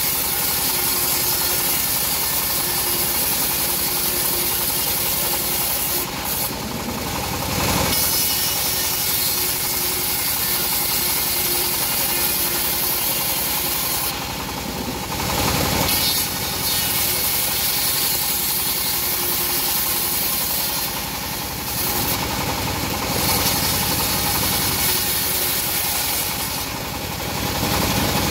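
Homemade bandsaw sawmill running, its band blade cutting lengthwise through teak boards over the steady drone of the mill's engine. The sound shifts briefly several times as one cut ends and the next board is fed in.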